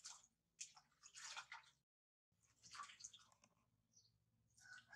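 Faint splashing and squelching of water in a metal basin as hands wash a wet baby monkey, in short uneven bursts, with a brief total gap about two seconds in.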